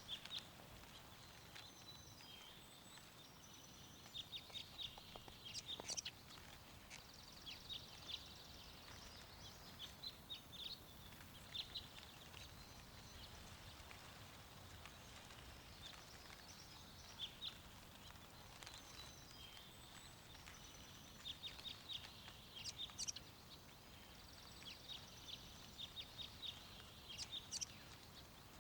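Birds chirping in scattered short bursts over a faint steady wind.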